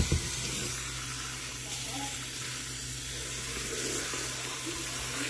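Kitchen faucet running a steady stream of water into a plastic bowl of soaked rice, rinsing the rice in the sink.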